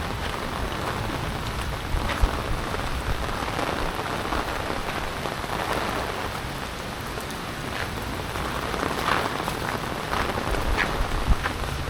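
Heavy typhoon rain falling steadily, with scattered louder drops striking close by.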